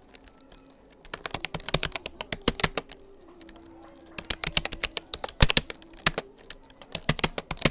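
Typing on a Rapoo computer keyboard: quick runs of key clicks, broken by short pauses at the start and about halfway through.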